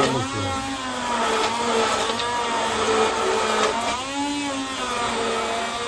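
Handheld electric immersion blender running in a pot, emulsifying melted beeswax and oil with chamomile rose water into a cream; its motor whine wavers up and down in pitch as it works through the mixture.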